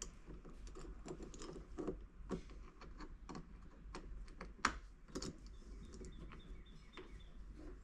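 Irregular light clicks and taps of a screwdriver against metal doorknob hardware as the knob's mounting screws are started by hand, with one sharper click a little before five seconds in.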